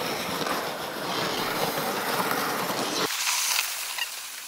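Plastic sled scraping and sliding over packed snow, a steady grainy hiss that drops to a softer, thinner hiss about three seconds in.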